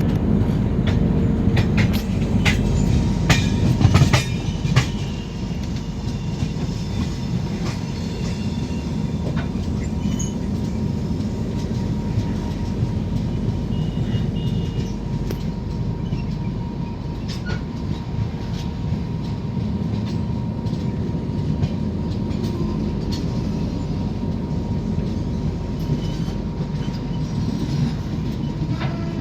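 Express passenger train rolling on the rails: a steady low rumble of wheels with scattered sharp clicks over the track. It is louder for the first few seconds, then settles to an even level.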